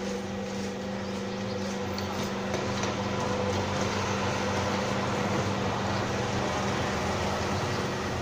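Hydraulic lift's electric motor and pump running with a steady hum while the goods platform rises, growing a little louder about two and a half seconds in.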